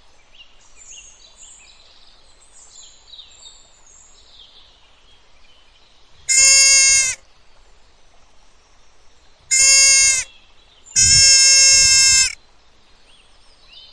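Three loud bleating animal calls, each held on one steady pitch, the last one the longest. Faint bird chirps sound in the first few seconds.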